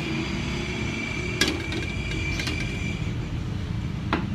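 Three sharp knocks, about a second or more apart, over a steady low rumble. A thin high whine fades out about three seconds in.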